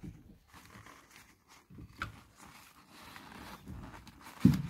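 Paper tissue rustling and small scrapes and knocks as parts are worked free by hand in an engine bay, with a short dull thump near the end.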